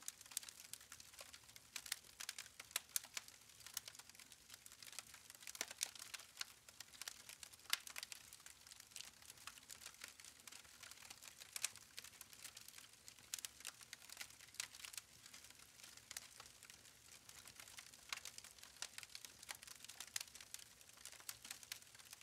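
Wood fire crackling faintly, with irregular small pops and clicks.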